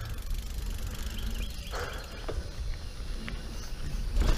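Mountain bike rolling fast along a dirt singletrack: tyres on dirt and the frame rattling over a low rumble, with scattered clicks and a louder knock about four seconds in as the bike hits a bump.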